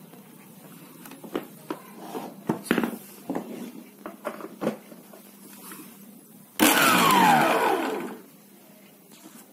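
Handling clicks and knocks on the freshly refitted drive coupling, then the Birla mixer grinder's motor is switched on and runs loudly for about a second and a half before stopping. It is a test run after the repair, and the motor now runs.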